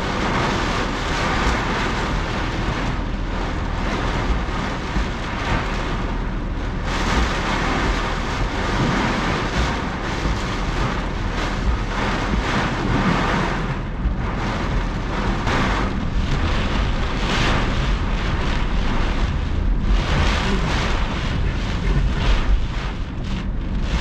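Heavy thunderstorm downpour beating on a moving car's roof and windshield, with gusting wind, heard from inside the cabin over the low rumble of the car. The rush of rain surges and eases every second or two.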